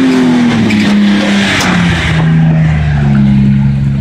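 Jeep Wrangler JK's engine working under load as it crawls up a rock ledge, its pitch dropping and then rising again. About a second in, the tyres scrabble on rock and loose gravel, with a few sharp clicks.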